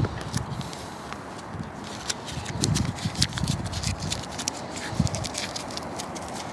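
Handling noise from a plastic diesel throttle body and a roll of masking tape being worked over its electrical plug: a string of small clicks and light crackles with a few soft low thumps.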